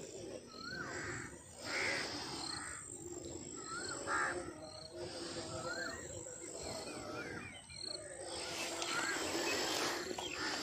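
Birds calling outdoors: harsh crow-like caws among a repeated rising-and-falling call about once a second, with short high chirps.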